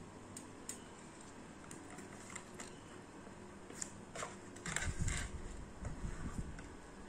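Small clicks and taps of hands handling wires and a black plastic lamp housing. About four and a half seconds in, louder knocks and rubbing as the housing is picked up and turned in the hands.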